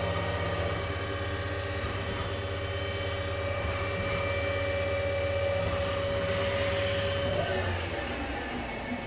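Spindle of a Trak FHM7 CNC bed mill running steadily at its top speed of 5,000 RPM with a steady whine and low hum. About seven and a half seconds in, the pitch shifts and falls as the spindle winds down.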